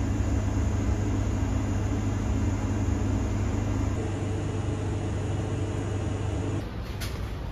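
A steady machine hum with a strong low drone and a fainter hiss, starting suddenly and dropping slightly in level twice.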